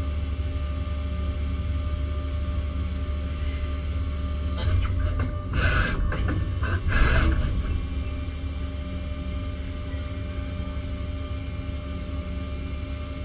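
CNC machining centre running with a steady low hum. About halfway through come a few clicks and two short hisses about a second apart, at the point where the spindle pulls back from the engine block and changes tool.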